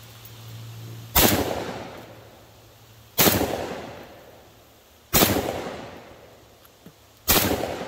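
Semi-automatic Charles Daly 601 shotgun fired four times in quick succession, about two seconds apart, each loud report echoing and fading over a second or so.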